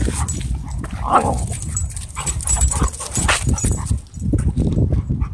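Two dogs play-wrestling and vocalizing, with short yips and whimpers; the loudest call comes about a second in, followed by several shorter sharp sounds.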